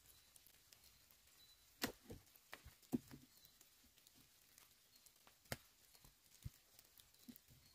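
A few sharp knocks and clicks of dry wood as dead branches are handled against a fallen tree trunk, the loudest about two and three seconds in and another about five and a half seconds in, with near silence between.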